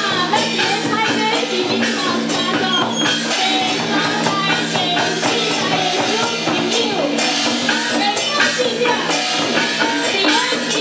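Live traditional Taiwanese opera parade music: a large barrel drum and other percussion striking steadily under a gliding, wavering melody.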